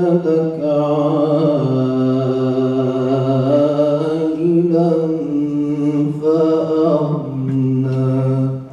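A man's solo religious chant: one long phrase of drawn-out, held notes that step down and back up in pitch a few times, ending shortly before the end.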